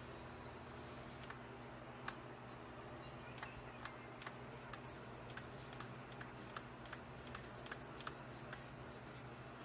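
Faint, light clicks and ticks at irregular spacing, roughly two a second, over a low steady hum.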